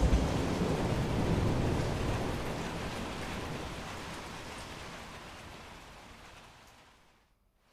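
Thunderstorm: steady rain with a low rumble of thunder at the start that dies away slowly over several seconds, fading almost to silence near the end.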